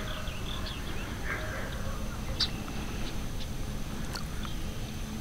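A few short, sharp bird chips and chirps over a low, steady outdoor rumble.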